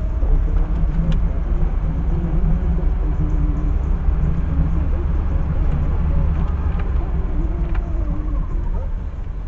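Car driving, with a steady low engine and road rumble as picked up by a dashcam inside the cabin.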